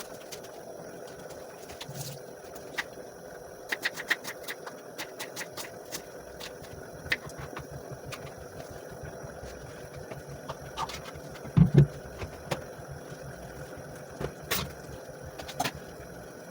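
A kitchen knife striking a cutting board in a run of quick chopping strokes, with scattered single taps and one heavier thump of something set down about twelve seconds in.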